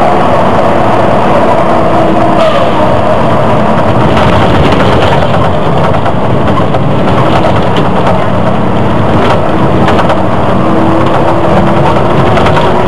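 Volvo Olympian double-decker bus running under way, heard from inside the bus: steady engine and road noise with a whine that shifts in pitch a few times, and a few sharp rattles.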